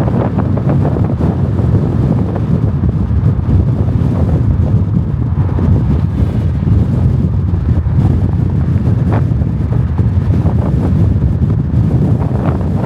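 Strong wind buffeting the microphone: a loud, steady rumbling rush with brief gusty flutters.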